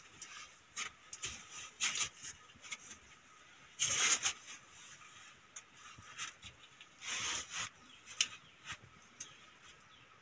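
Scattered rustling and scraping, with short louder scratchy bursts about two, four and seven seconds in and faint clicks between them.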